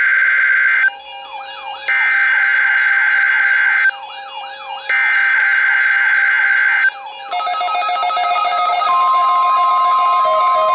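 NOAA Weather Radio EAS/SAME header data bursts on a weather radio: three harsh digital screeches, each about two seconds long and a second apart, sending the coded Required Weekly Test message. About nine seconds in, the steady weather radio warning alarm tone begins.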